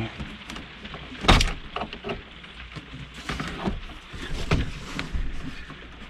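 Scattered clicks, knocks and rustling of hands working behind an RV's instrument cluster while the speedometer cable is refitted, with the loudest knock about a second in.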